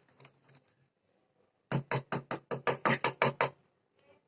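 A spoon knocking against a bowl of semolina cake batter: a quick, even run of about ten knocks at roughly five a second, starting a little under two seconds in.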